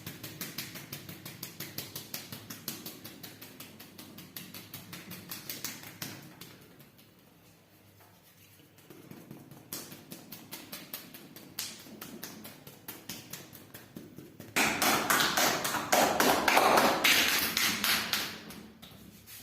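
Hands tapping and slapping rapidly on skin during a massage: a fast, even run of taps that gets much louder and denser for about four seconds near the end.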